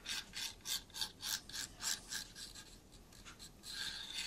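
Quick back-and-forth scratching strokes, about three a second, as super glue is spread along the edge of a laser-cut wooden wagon body, fading to lighter rubbing after about two and a half seconds.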